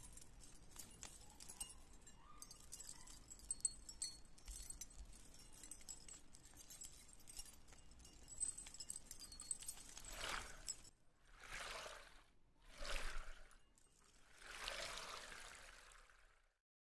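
Metal keychain rings and beaded charms on a display stand clinking and jingling faintly, with many small sharp clicks. About ten seconds in this gives way to four broad whooshing rustles, one after another.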